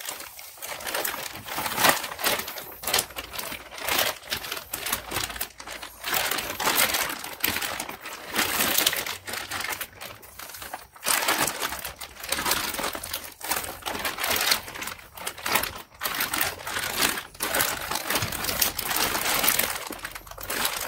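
Clear plastic bag and the brown paper wrapped around a transmission pump crinkling irregularly as they are handled and pressed to squeeze the air out of the bag.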